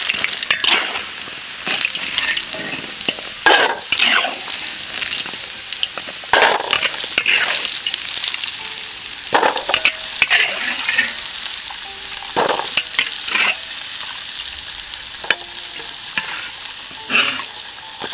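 Cornstarch-coated yam pieces deep-frying in hot oil in an iron wok, a steady sizzle on high heat, with irregular scrapes and knocks of a metal ladle against the wok as the pieces are stirred and scooped out.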